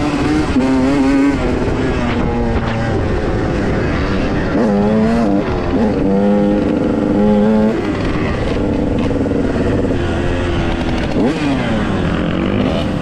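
Dirt bike engine being ridden off-road, the revs rising and falling with throttle and holding steady for stretches in between.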